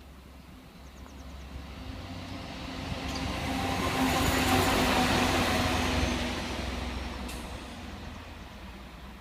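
A rail maintenance vehicle passing by on the track: a low, steady engine hum and wheel-on-rail noise that build up, peak about halfway through and fade away.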